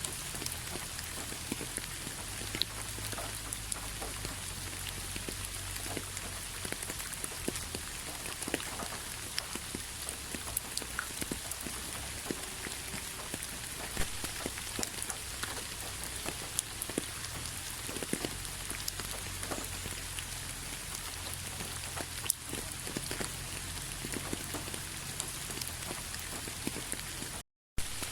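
Steady rainfall: an even hiss of rain with many separate drops ticking close by. The sound cuts out completely for a split second near the end.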